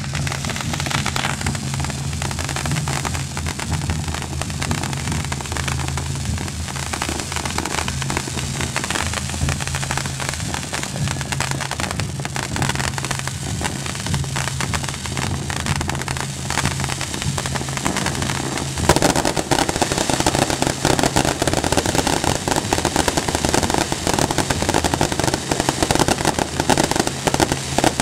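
Fireworks display: aerial shells bursting with a dense, continuous crackle of popping stars, over a low steady drone. About nineteen seconds in, the crackling becomes louder and denser.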